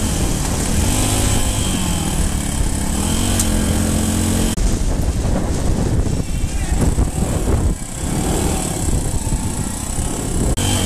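Dirt bike engine running under way, its pitch rising and falling with the throttle in the first few seconds. After about four and a half seconds a rough, noisy rush mostly covers the engine note.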